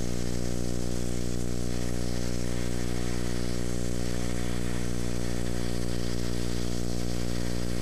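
E6010 stick-welding arc burning with a steady hiss as the rod is run along a steel plate, over a loud, steady low electrical hum.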